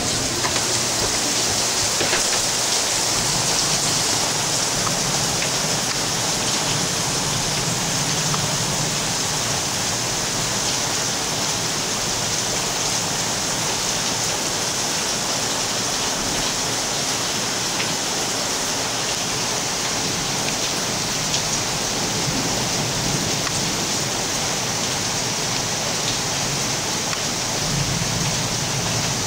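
Thunderstorm rain falling steadily, an even hiss with no letup.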